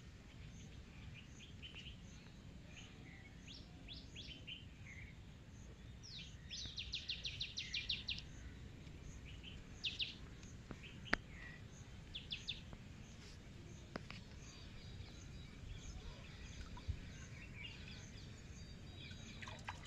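Birds chirping, faint, in short scattered calls with a quick run of chirps about six to eight seconds in, over a low steady background noise.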